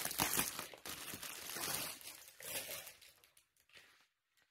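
Plastic packaging of a yarn pack crinkling as it is handled and opened, a dense rustling that dies away about three seconds in.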